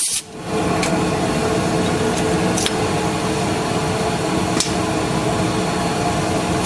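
Steady mechanical hum of shop machinery, with a few light metallic clicks as lathe tooling is handled.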